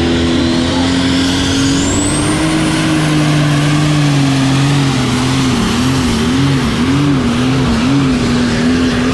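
Diesel super stock pulling tractor at full power under the load of the sled, with a high whistle rising steeply in pitch through the first couple of seconds. In the second half the engine note wavers rapidly up and down.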